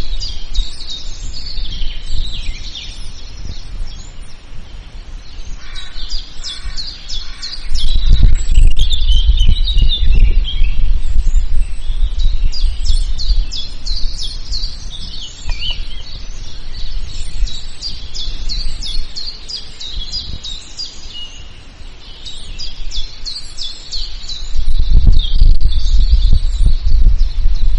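Dense chorus of many songbirds chirping and trilling continuously. A low rumble swells in about eight seconds in and again near the end.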